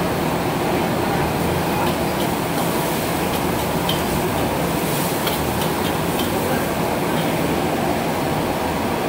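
High-pressure gas wok burner running with a steady roar, with a few light metal clinks of a ladle against the wok about two to five seconds in.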